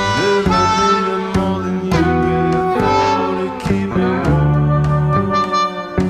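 Instrumental background music: a lead melody with sliding notes over a steady bass line.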